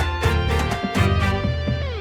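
Instrumental background music with strong, repeated note attacks over a bass line.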